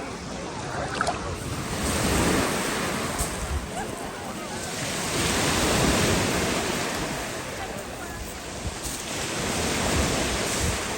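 Sea waves washing in and falling back, swelling and fading about every four seconds, with some wind buffeting the microphone.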